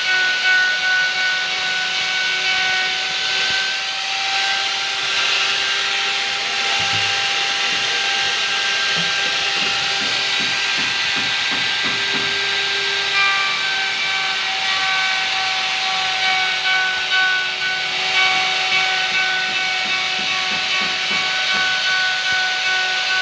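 DCK KMR04-12 electric wood router running at speed and cutting along a board's edge: a steady high motor whine with the hiss of the bit cutting the wood.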